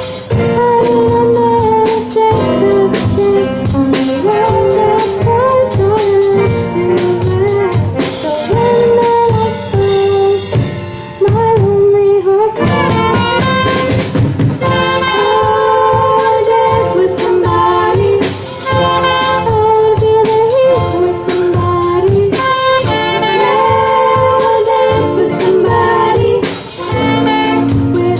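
Live garage band playing a song, with a girl singing lead over drum kit and band, and saxophone in the mix. The band thins out briefly about eleven seconds in, then comes back in fuller.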